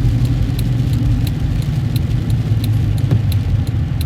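Vehicle engine and road noise heard from inside the cab while driving, a steady low drone, with a faint light ticking or jingle repeating about three times a second.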